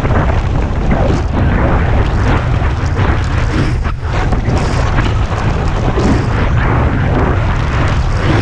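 Wind buffeting the microphone of a skier's body-mounted camera during a fast descent, a loud steady rumble, with the hiss and scrape of skis cutting through wind-crusted snow surging in and out with the turns.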